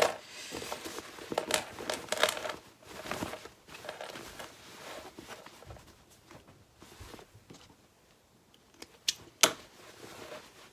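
Cotton fabric rustling and crumpling as a lined drawstring backpack is pulled right side out by hand, with two sharp clicks about nine seconds in.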